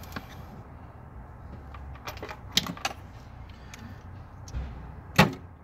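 Sharp metallic clicks and clinks of parts and tools being handled in an engine bay, a few scattered through and the loudest near the end, over a low steady rumble.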